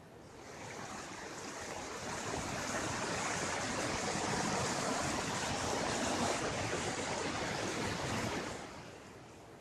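Floodwater rushing over a bridge after heavy rain: a steady rushing noise that fades in at the start and fades out about a second before the end.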